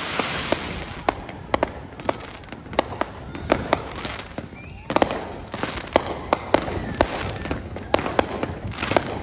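Fireworks crackling overhead: many small, sharp, irregular pops at several a second, with denser flurries about five seconds in and again near the end.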